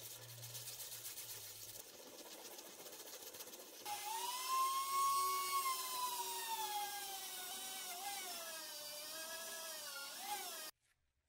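Small high-speed rotary tool grinding and polishing the steel hammer head. It starts as a hissing grind, and about four seconds in a high motor whine comes in, rising and then sagging and wobbling in pitch. The sound cuts off abruptly near the end.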